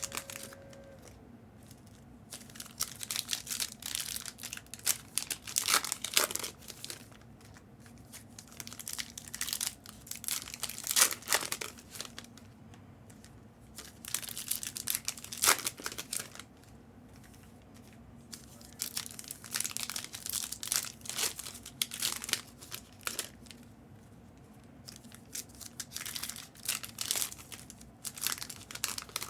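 Foil trading-card pack wrappers being torn open and crinkled, in irregular bursts with short pauses between.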